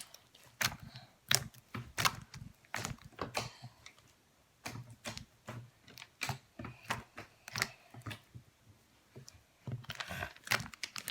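Homemade jiggly slime being poked and squished by hand, making a string of irregular short clicks and pops.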